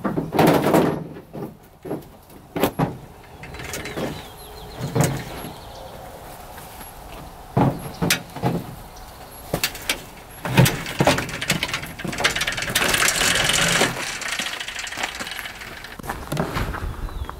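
A dirt bike being rolled down an aluminium loading ramp from a pickup bed: scattered metallic knocks and clanks from the ramp and bike, with a stretch of steadier rolling noise about two-thirds of the way through.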